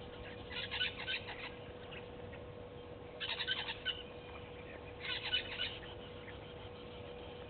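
A wild bird calling in three short bursts of rapid, high chattering notes, over a steady faint hum.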